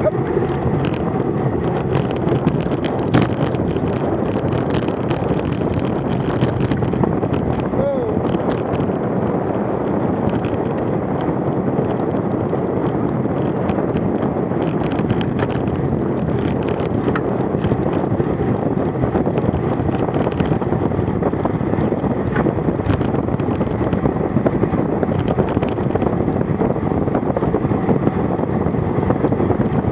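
Steady wind rush buffeting an action camera's microphone on a road bicycle moving at speed.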